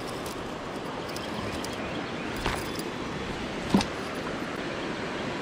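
Steady rushing of a shallow river flowing over rocks, with two brief knocks, one about two and a half seconds in and a sharper one near four seconds.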